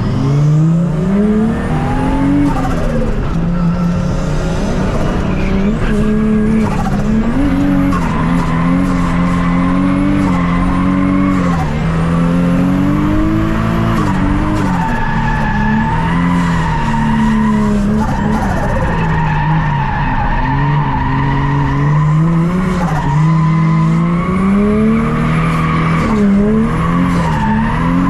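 Turbocharged Toyota 1JZ straight-six revving up and falling back over and over while drifting, with tyres squealing through the slides. Short chirps in between, taken to be turbo flutter on lift-off.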